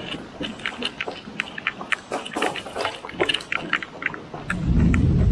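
Rain falling, with many sharp, irregular drop hits close by. About four and a half seconds in, a deep rumble of thunder starts and swells.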